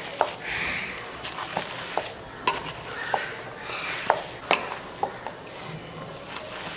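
Hands squeezing and tossing sliced pointed gourd, onion and chilli with dry gram flour in a stainless steel bowl: a wet, gritty rustling. Irregular sharp clicks, about eight, come as the hands and bangles knock against the steel bowl.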